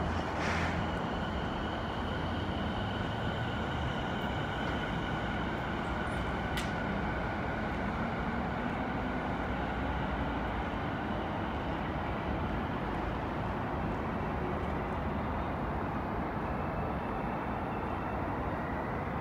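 Rinkai Line 70-000 series electric train pulling out and running away along the track: a steady rumble with a thin whine that rises slightly in pitch as it gathers speed. There is one sharp click about a third of the way through.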